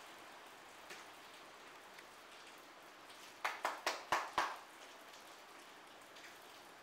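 A quick run of about five sharp knocks within a second, a little past the middle, from a baby monkey clambering onto the armrest and back of an office chair, over a steady faint hiss.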